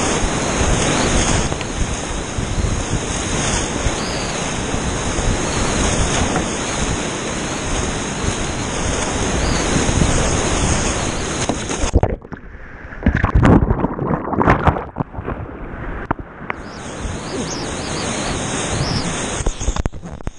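Whitewater rapid rushing and crashing around a kayak, heard close up from a camera on the boat. About twelve seconds in, the steady roar suddenly drops and gives way to irregular splashes and knocks for about four seconds as the kayak punches through a big wave, then the rushing water returns.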